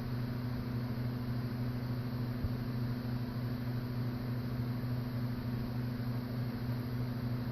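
Steady low electrical hum over an even background hiss, with no coughing.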